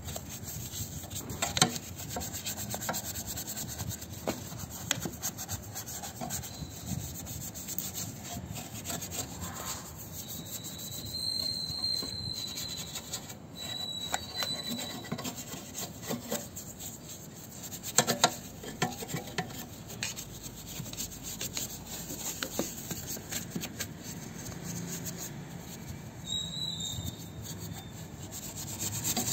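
A small bristle brush scrubbing the wet painted metal of a car's fuel filler recess: a steady run of short, rough rasping strokes, with two sharper knocks, one near the start and one about two thirds of the way through.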